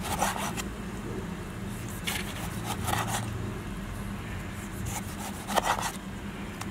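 Chef's knife slicing a tomato on a bamboo cutting board: about four separate cuts, each ending in a knock of the blade on the wood, the loudest near the end.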